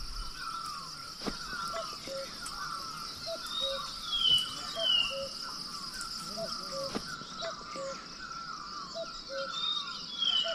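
Woodland ambience: a steady high-pitched insect drone, with birds calling over it. One bird repeats a short low two-note call about every second, and twice a run of three falling whistled notes sounds out.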